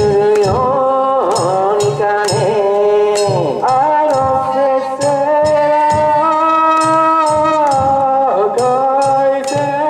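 Danjiri festival float music: a drum and a small gong struck about twice a second in a steady beat, under a melody of long held notes that slide down at their ends.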